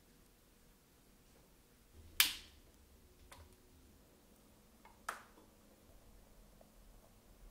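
Sharp taps of a small kitchen knife on a miniature wooden cutting board: two clicks about three seconds apart, the first the loudest, with a fainter tap between.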